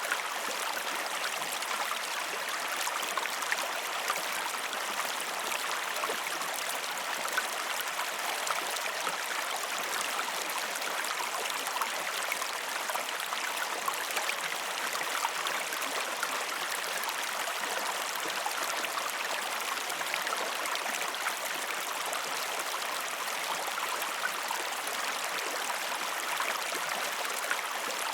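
River water flowing steadily over rocks, a constant rushing with small splashes and gurgles.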